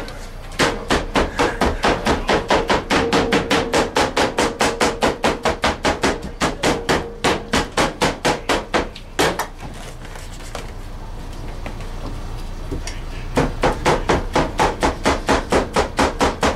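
A meat cleaver chopping barbecued meat in a fast, steady rhythm of about four to five chops a second. It stops for a few seconds past the middle, then starts again.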